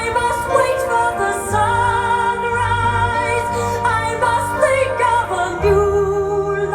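A vinyl record playing on a VPI Prime turntable with a Soundsmith Zephyr MKIII cartridge: a woman singing a slow melody with vibrato over held bass notes.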